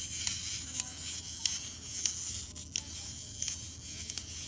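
Wind-up clockwork motor of a McDonald's Chicken Little Happy Meal toy running, a steady high whirr with irregular clicks.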